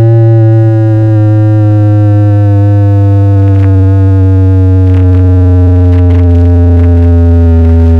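Very loud sustained synthesizer bass tone blasting from a large DJ sound-system speaker rig, its pitch sliding slowly downward.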